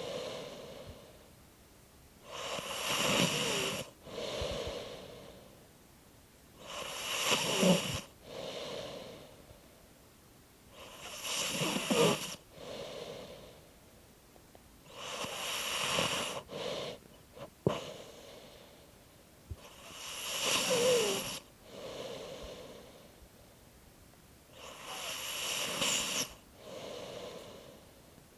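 Slow, regular snoring: six rasping breaths about every four and a half seconds, several carrying a thin, quiet squeak that slides in pitch. A few small clicks come about two-thirds of the way through.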